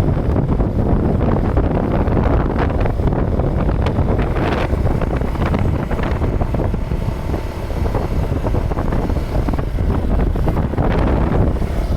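Wind buffeting the microphone in a steady, loud rumble.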